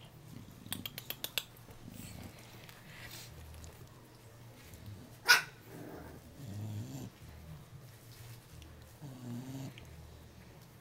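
Three-week-old English bulldog puppies giving short, low grunts and small growls as they squirm and nip at each other. A quick run of clicks comes about a second in, and one sharp click about halfway through is the loudest sound.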